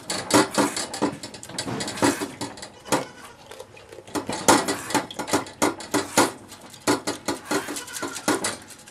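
A goat being hand-milked: squirts of milk hitting the pail in a quick, uneven rhythm of about two to three strokes a second.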